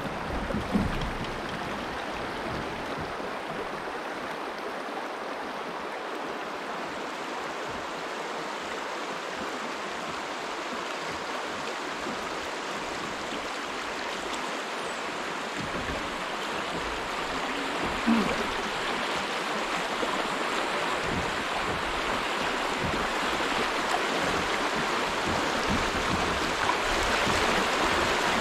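Shallow creek water rushing over a rocky riffle around a kayak, a steady rush that grows louder toward the end. Two short thumps, one near the start and one a little past halfway.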